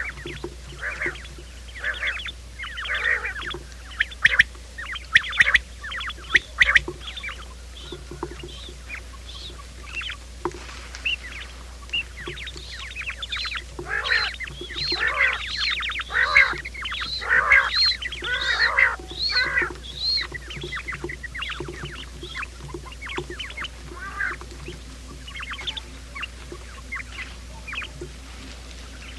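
Quail calling, of the kind played as a lure for trapping: a long run of short, quick calls, crowded most densely around the middle, over a steady low hum.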